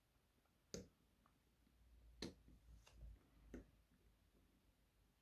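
Faint clicks of a disc-detainer pick turning the discs of an Abus Granit X-Plus disc lock into their gates: four soft clicks a second or so apart, with a little low handling rumble in between.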